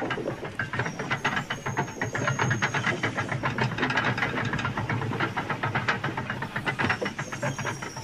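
Steam locomotive chuffing at a quick, steady rhythm, several puffs a second, with a hiss of steam.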